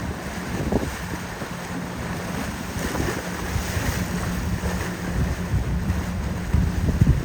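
Wind buffeting the microphone over steady boat motor noise and waves at an ocean inlet, with gusts rumbling louder near the end.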